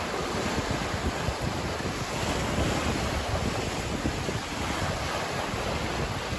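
Wind-driven waves lapping and breaking on a rocky lake shore, with wind buffeting the microphone in a steady low rumble.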